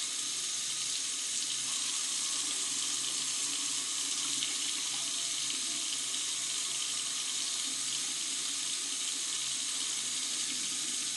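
Hot-water tap running steadily with an even hiss of flowing water. The water is still running cold because the Navien tankless water heater has not fired, a fault the owner eventually traced to its control board and igniter.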